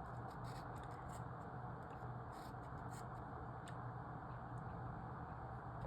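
Steady low electrical hum and hiss, with faint, irregular scratchy ticks of writing or marking on a logic-puzzle grid.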